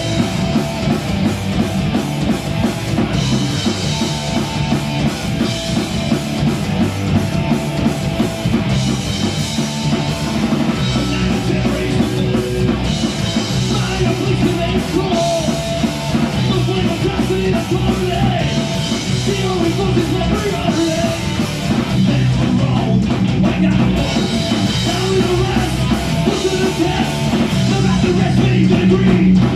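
A rock band playing live at full volume: distorted electric guitars, bass and drum kit, with a vocalist singing into a microphone over them.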